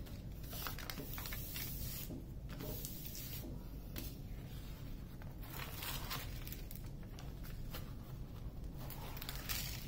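Rustling and crinkling of a diamond painting canvas and its plastic cover being handled and smoothed flat, in repeated short bouts, over a low steady hum.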